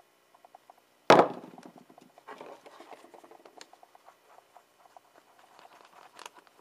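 A sudden loud bump about a second in, then a stick scraping and tapping on a piece of card as two-part adhesive is stirred, a quick run of small scratchy clicks.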